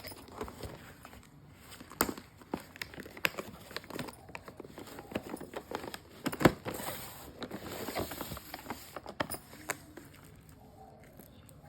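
Hands handling biscuit packaging: scattered crinkles, rustles and small knocks. The sharpest knock comes about six and a half seconds in, and it quietens near the end.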